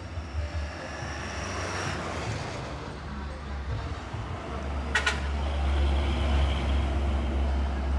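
Road traffic with trucks passing close. A truck goes by with a swell of tyre and engine noise about two seconds in. From about halfway a Hino 500 tractor-trailer's diesel engine comes in with a deep, loud rumble, and there is a brief sharp hiss about five seconds in.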